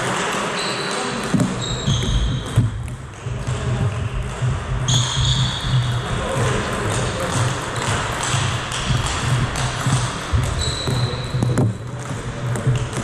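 Table tennis ball clicking off the bats and table during rallies, over the steady background noise of a large sports hall. Several short high squeaks come and go.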